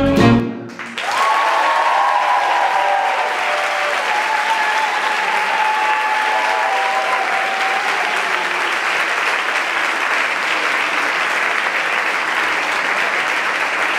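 Swing music ends on its final chord, and about a second later a theatre audience breaks into steady applause. Some cheering carries over the clapping for the first several seconds.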